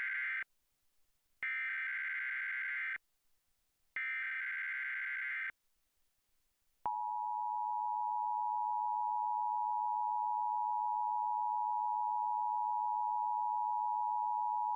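Emergency Alert System test broadcast: the end of one data burst of the SAME header, then two more identical bursts about a second and a half long each, a short pause, and then about eight seconds of the EAS two-tone attention signal, two steady tones sounded together, which cuts off abruptly near the end.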